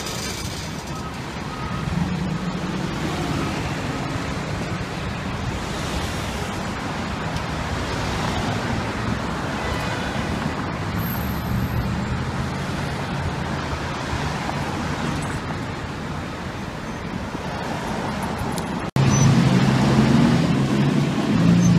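City street traffic: cars and vans driving past, with a faint reversing beeper beeping in the first couple of seconds. Just before the end there is a sudden jump to louder traffic, with a fire engine's diesel engine droning as it approaches.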